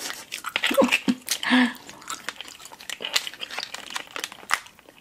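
Close-miked chewing and mouth sounds of gummy candy being eaten, with many small sticky clicks and a brief vocal sound about a second in.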